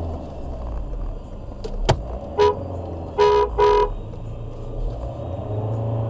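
Car horn tooted three times, one short toot and then two longer ones in quick succession, just after a sharp click, over a car engine idling.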